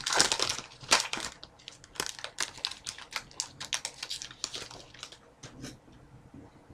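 Foil wrapper of a hockey card pack crinkling and tearing as it is opened by hand: a quick run of crackles that thins out and fades over the last second or so.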